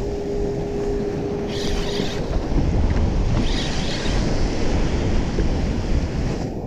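Wind buffeting the microphone in a low rumble over choppy waves washing around the boat, with a couple of brief hissing splashes. A steady hum runs through the first two seconds.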